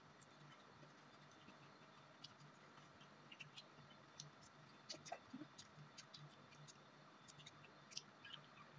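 Faint eating sounds: scattered small clicks and smacks of chewing and of fingers pulling apart fried chicken, over a low steady hum.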